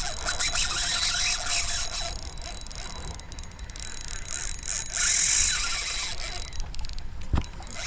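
Fishing reel drag screaming as a hooked jack crevalle runs and pulls line off, a high-pitched whirring squeal that surges and eases in spells.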